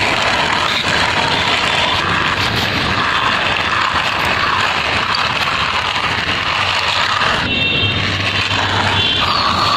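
Steady car-engine running noise accompanying a red plastic toy sports car pushed by hand along a concrete wall, with a brief change in the sound about three-quarters of the way through.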